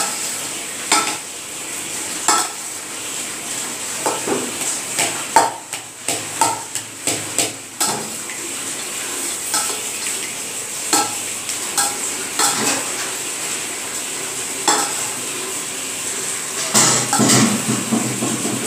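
Raw-mango pulihora, cooked rice with grated mango and tempering, being mixed by hand in a large stainless-steel bowl. Irregular clicks and knocks against the metal sound over a soft rustle, with a longer, louder scrape near the end.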